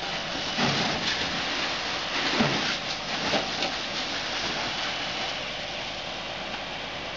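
Fire hose stream spraying water onto smouldering debris: a steady rush and splatter, with louder surges of splashing about half a second in and again from about two to three and a half seconds in.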